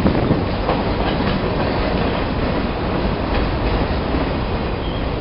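Freight train of boxcars rolling past close by: steady noise of steel wheels on the rails, with scattered clicks as the wheels run over the track.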